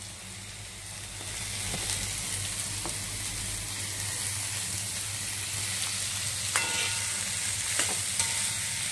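Half-boiled carrot and potato pieces dropping into hot oil in a wok with onions and beans, sizzling; the frying hiss swells about a second in as the vegetables go in. A few light clicks and a brief metallic ring from the spatula and steel plate near the end.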